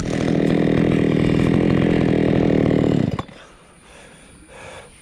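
Two-stroke chainsaw running steadily at close range, then cutting off abruptly about three seconds in.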